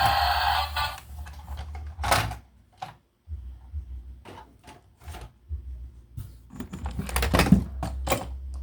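A loud sound with steady tones runs on and cuts off about a second in. Then come irregular sharp clicks and knocks, sparse at first and thicker near the end, over a steady low hum.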